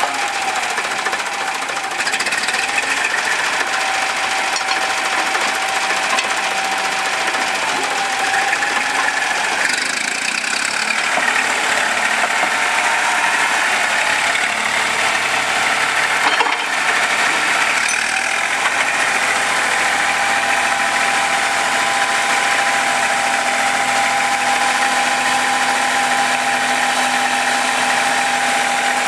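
Vintage road roller's engine running, its speed wavering in the first half and holding steady in the second half, with one sharp click about halfway through.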